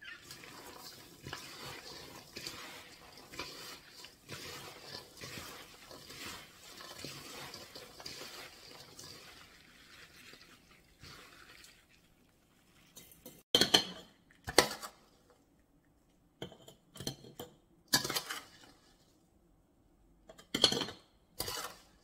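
Gloved hands tossing chopped chili peppers with white sugar in a stainless steel bowl, a continuous gritty rustling that stops after about ten seconds. Then a handful of sharp clanks as a metal spoon strikes the steel bowl while scooping the sugared peppers.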